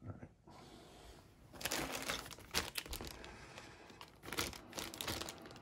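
Clear plastic bag of model-kit sprues crinkling and crackling as it is handled and lifted out of the box, starting about a second and a half in.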